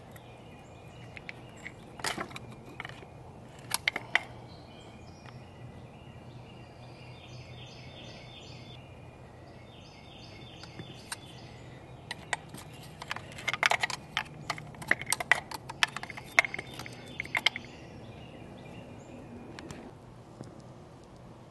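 Clicks and rattles of hand work on engine-bay parts around the spark plug wiring: a few sharp single clicks, then a long burst of rapid clicking in the middle. Birds chirp faintly in the background.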